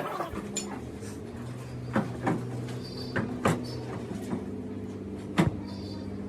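A steady low hum with several sharp knocks or clanks over it, the loudest about five and a half seconds in.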